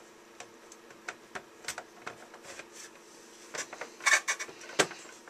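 Two PowerLab 8 battery charger cases being slid together and pressed against each other: scattered light clicks and knocks of the hard cases, with a cluster of louder knocks about four seconds in.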